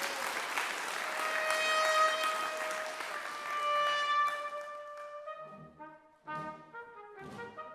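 Brass band playing: a noisy wash fades over the first second, one high note is held for about four seconds, then the band breaks into quick, short, detached notes over a bass line.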